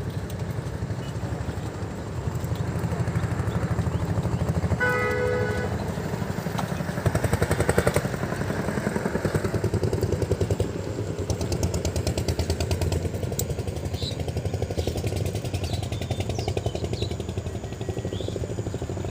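A small engine running steadily with a fast pulsing rumble, and a brief horn-like tone about five seconds in.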